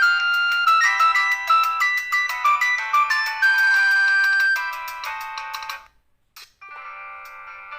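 Samsung SCH-F309 cellphone playing a polyphonic MIDI ringtone through its small loudspeaker: a quick, bright melody of chiming synth notes that stops about six seconds in. After a brief silence and a faint click, the next ringtone starts, quieter.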